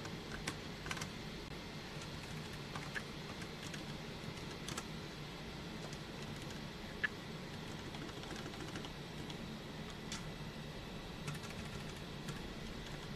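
Computer keyboard keystrokes, sparse and irregular: single clicks a second or more apart, with a sharper one about seven seconds in, over a steady low hum of room or computer noise.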